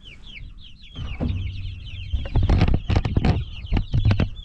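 Young meat-bird chicks peeping nonstop in quick, high, downward-sliding chirps. From about a second in, a run of sharp knocks and thumps joins them, loudest in the second half.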